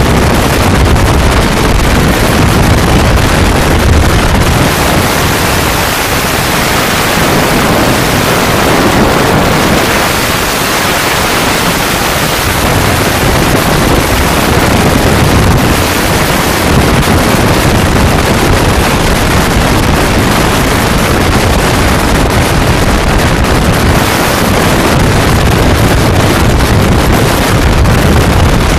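Loud, steady rush of freefall wind blasting over the camera's microphone during a skydive.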